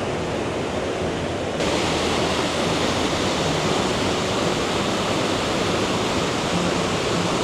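Steady rush of water falling at Iguazu Falls. About one and a half seconds in it jumps to a louder, brighter rush.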